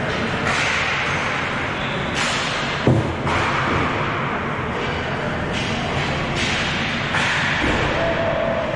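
Ball hockey rink noise: a steady hiss of play and movement with repeated swishes, one sharp thud about three seconds in, and a steady tone that comes in near the end.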